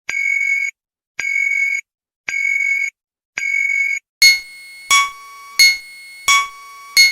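Emergency Alert System-style alarm: four short, harsh electronic data bursts, about one a second. From about four seconds in, a repeating synthesized alarm beep takes over, a sharp tone roughly every 0.7 seconds that is louder than the bursts.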